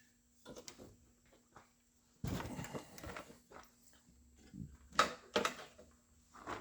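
Scattered clicks, rustling and a couple of sharp knocks about five seconds in: parts and wiring being handled during dash work.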